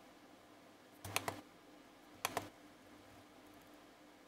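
Two short clusters of two or three sharp clicks, about a second apart, from fingers working the buttons and controls of a FrSky ETHOS radio transmitter.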